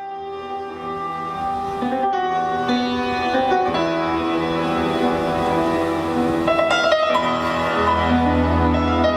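Instrumental background music led by piano, starting softly and building gently, with sustained notes and a deeper bass entering near the end.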